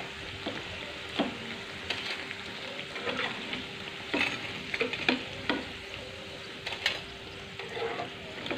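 Hot oil sizzling around breaded tempeh steaks in a frying pan as they are lifted out with a metal slotted skimmer. The skimmer clicks and scrapes against the pan several times.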